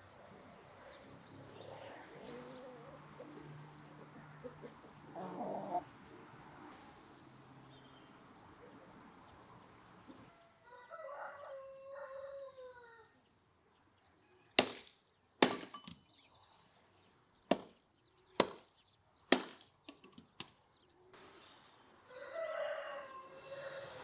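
Poultry in a yard, with a rooster crowing about halfway through and again near the end. In between, an axe splits firewood: five sharp chops spread over about five seconds, the loudest sounds here.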